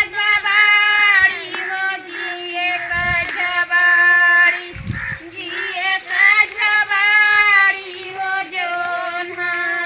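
Village women singing a Kajri folk song, a paddy-transplanting work song, in long held, gently wavering notes.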